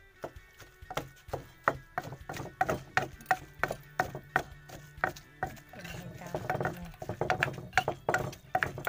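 Wooden pestle pounding ingredients in a mortar: steady dull knocks, about three a second, coming quicker near the end.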